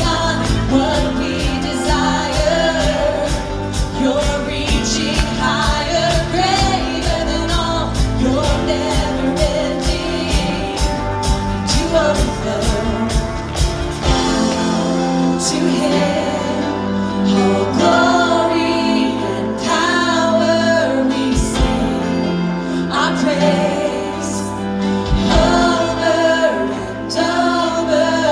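Contemporary worship band playing live: women singing the lead and backing parts over electric guitars and drums. About halfway through, the drums and bass drop back and the singing carries on over lighter accompaniment.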